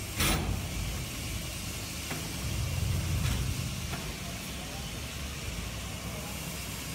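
Diesel engine of a road sweeper truck running at low revs, its rumble swelling a little about three seconds in, with a short sharp hiss about a quarter second in and a few faint clicks.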